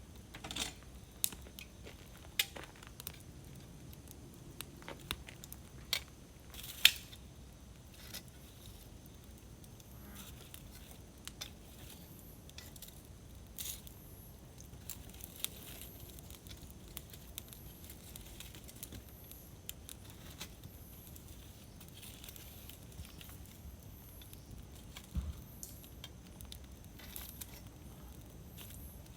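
Wood campfire crackling: irregular sharp pops and snaps over a faint steady hiss, the loudest pop about seven seconds in, and one duller low knock near the end.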